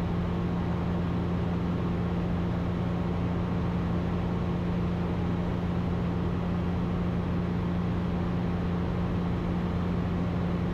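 Ikarus C42 light aircraft's engine and propeller droning steadily in flight, heard from the cockpit, with a constant low hum.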